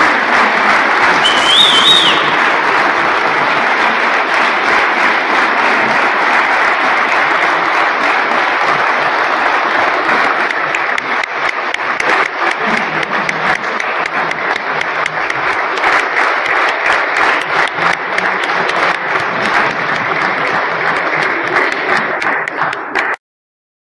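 Theatre audience applauding steadily, the clapping thinning a little in the second half and cut off abruptly near the end.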